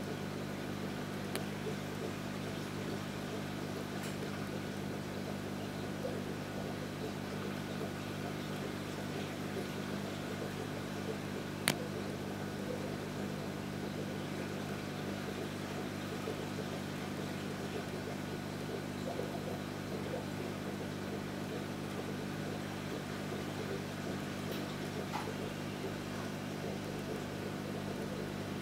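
Steady low hum of a running reef aquarium's pumps and equipment, with one sharp click about twelve seconds in.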